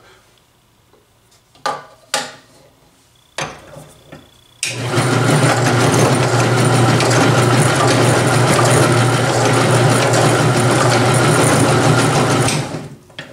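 Benchtop drill press motor running steadily and spinning a Vortex Ball Roller, with a cast lead round ball being rolled between its rough surfaces. It starts abruptly about a third of the way in and stops shortly before the end. Before it come a few clicks and knocks as the ball is loaded and the roller is closed.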